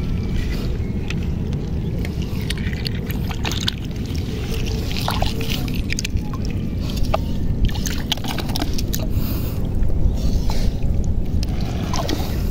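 Water sloshing and splashing with small drips as a hand reaches through shallow seawater to the sandy bottom, over a steady low rumble.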